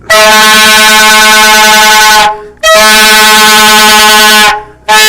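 A horn blown as a ceremonial "trumpet" in very loud, long blasts at one steady pitch: two blasts of about two seconds each with a short break, and a third starting near the end.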